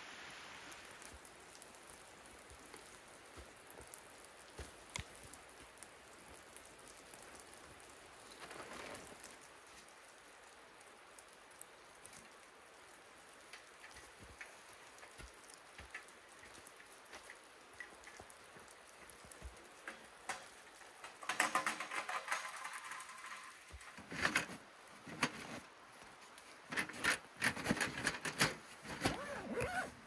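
Soft, steady rain patter with scattered drips. From about twenty seconds in come loud, irregular bursts of rustling and crinkling as the hot tent's fabric is handled while camp is broken down.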